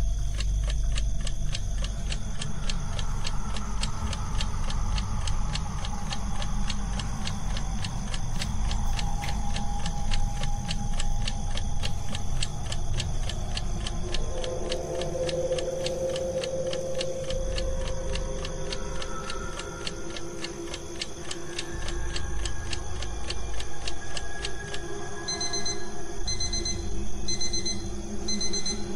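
A clock ticking steadily over a low droning background with long held tones. Near the end the ticking stops and an alarm clock starts beeping in short repeated bursts.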